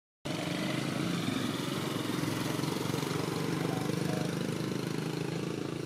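A small engine running steadily at idle: a low hum with a fast, even pulse.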